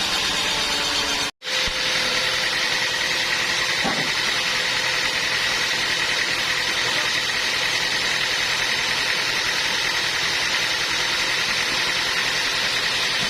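Sawmill machinery running steadily, a constant mechanical drone with a faint high whine. The sound cuts out for an instant about a second in, then resumes unchanged.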